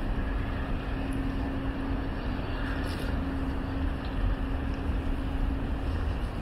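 Steady city street ambience: a low rumble with a constant low hum over it, the hum dropping away near the end.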